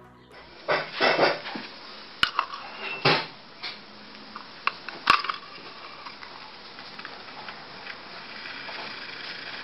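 Handling of the parts of a magnetic spinning-top levitation setup: a series of sharp clicks and knocks of hard parts being set down and fitted together on a wooden floor during the first five seconds, then a steady hiss.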